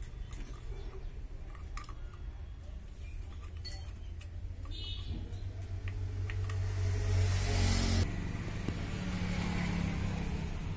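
Low, steady rumble of a motor vehicle engine running, growing louder with a rushing noise and cutting off abruptly about eight seconds in. A few light metal clicks come from pliers working on the motorcycle's engine casing.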